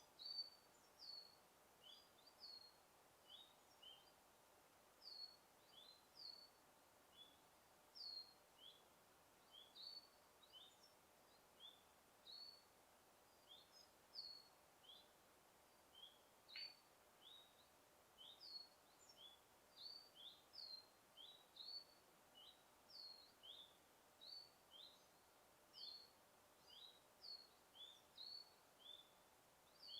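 A bird chirping over and over, faintly: short, slightly falling notes, about two a second, alternating between a higher and a lower pitch, over a soft background hiss of forest air.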